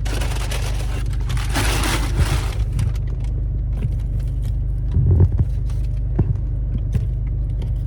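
Car idling with a steady low hum heard from inside the cabin, under rustling and handling noise for the first two and a half seconds and a few knocks, the loudest about five seconds in.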